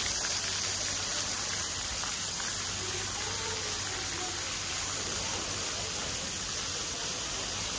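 Steady rushing hiss of running water from a pool area's splash-pad fountains, with faint distant voices.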